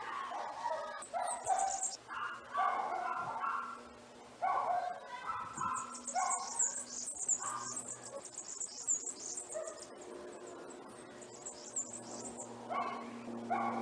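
An animal calling in short, irregular bursts over the first half, then high, rapid chirping through the middle.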